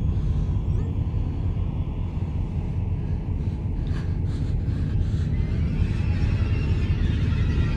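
Low, steady rumbling drone from a horror film's soundtrack, with faint high eerie tones creeping in near the end.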